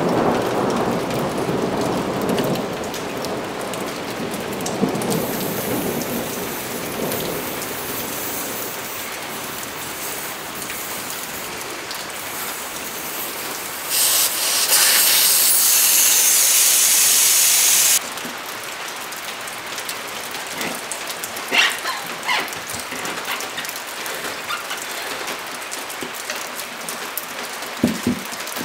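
Steady rain hiss, with a low rumble of thunder in the first few seconds and a stretch of louder hiss for about four seconds around the middle that starts and stops suddenly. A few light metal clinks near the end, from tire irons working on the wheel rim.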